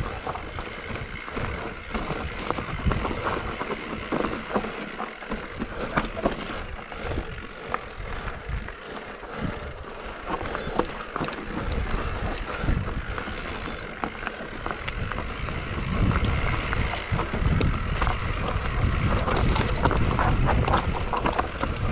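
Mountain bike running fast down a rough trail: tyres rolling over dirt and rocks, with frequent knocks and rattles from the bike, and wind on the microphone. It gets louder for the last few seconds.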